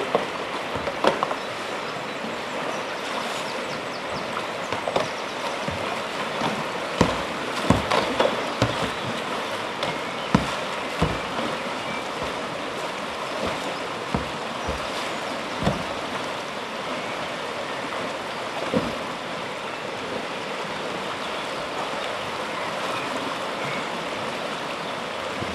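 River water rushing steadily over shallow, stony rapids, with a few brief thumps now and then.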